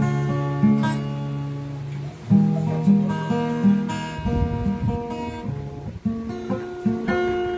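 Acoustic guitar played slowly, picked chords and single notes ringing on over bass notes, with a brief low rumble a little past halfway.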